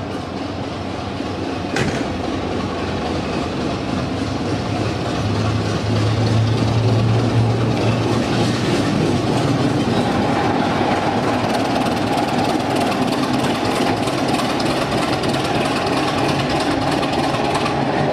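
British Rail Class 24 diesel locomotive D5061 running light at low speed, its Sulzer six-cylinder diesel engine humming steadily and growing louder as the locomotive comes past close by.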